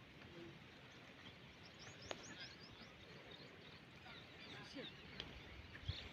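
Quiet outdoor ambience with faint bird chirps: short, high calls scattered through, most of them in the middle.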